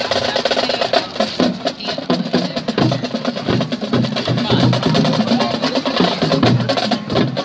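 Marching band drumline playing a steady marching cadence, snare drums prominent, with many quick rhythmic strokes.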